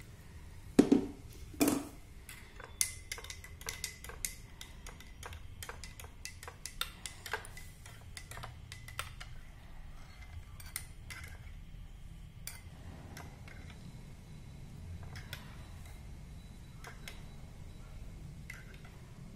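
A steel spoon stirring cumin seeds in hot water in a glass tumbler, clinking against the glass again and again, with the clinks thinning out in the second half. Two heavier knocks come about a second in.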